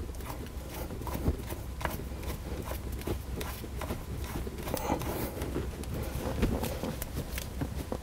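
Shift knob being screwed by hand onto a Steeda Tri-Ax short-throw shifter handle: small irregular clicks and rubbing, over a steady low hum.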